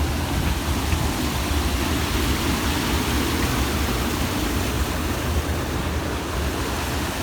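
Floodwater rushing steadily, with the stream running very high.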